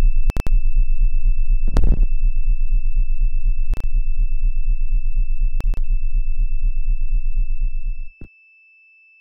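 Electronic closing music: a synthesizer track with a fast pulsing bass, a steady high tone and a few sharp hits, cutting off abruptly about eight seconds in.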